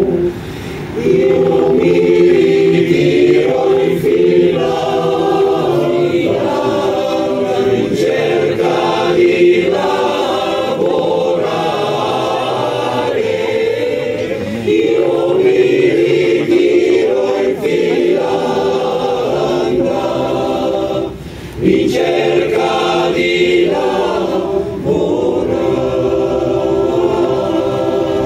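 Male choir singing unaccompanied in harmony, with short breaks between phrases about a second in and again about 21 seconds in.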